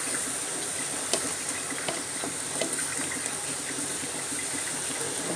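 Chicken and potato curry simmering in a pot as its water cooks down: a steady hiss with a few faint pops and clicks.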